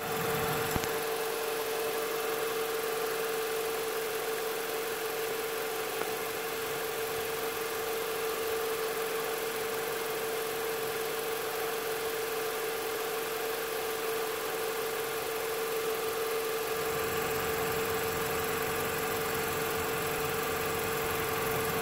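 A steady machine hum with one strong, even tone, unchanging throughout; a deeper rumble joins in about 17 seconds in.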